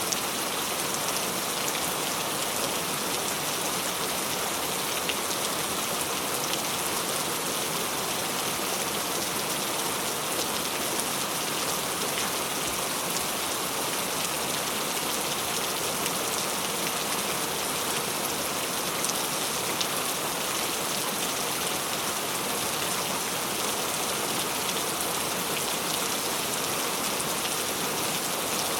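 Steady rain falling, an even hiss with scattered drop patter and no thunder.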